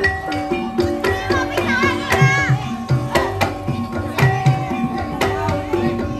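Javanese kuda lumping gamelan music: kendang hand drums keep up a quick, steady pattern under ringing pitched gong-chime notes, with a short wavering melody line about two seconds in.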